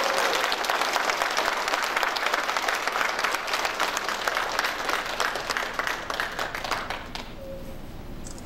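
Audience applauding, many hands clapping at once; the applause gradually dies away and stops about seven seconds in.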